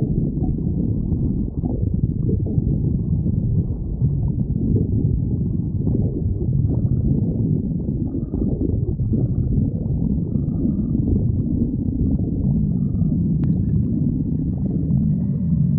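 A hungry person's stomach growling: continuous low rumbling and gurgling.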